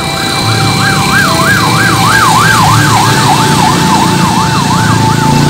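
Ambulance siren in a fast yelp, its pitch swinging up and down about three times a second and growing louder as it approaches. A steady tone joins about two seconds in, over the low rumble of traffic.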